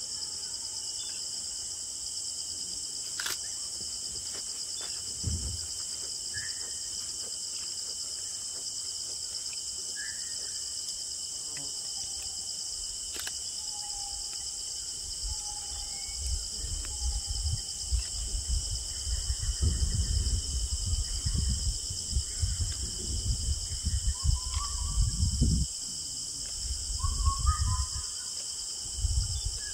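A steady, high-pitched insect chorus of crickets or cicadas, with occasional short bird chirps. Two sharp clicks come about three and thirteen seconds in. From about halfway through, a low, uneven rumble comes and goes and is louder than the insects.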